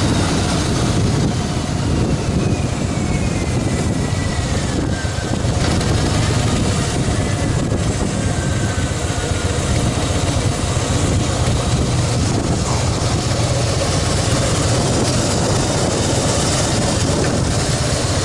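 2014 Harley-Davidson Fat Boy Lo's air-cooled V-twin engine running at low speed as the bike rolls in, then idling once it stops.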